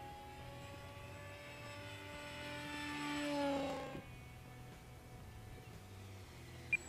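Electric motor and propeller of a Hobby King Skipper RC flying boat whining in flight. It grows louder as the plane comes close and the pitch drops as it passes, about three and a half seconds in. The sound then cuts off abruptly, and a fainter steady drone carries on.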